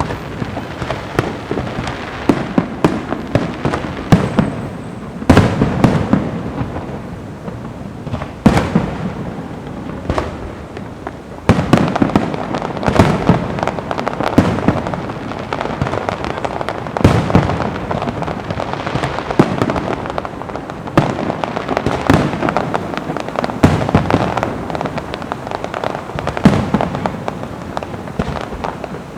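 Fireworks going off in a continuous barrage: loud booming bursts every second or few, with dense crackling between them.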